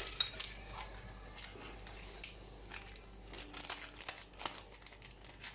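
Small baking powder sachets crinkling and rustling as they are torn open and emptied into the batter: soft, irregular crackles.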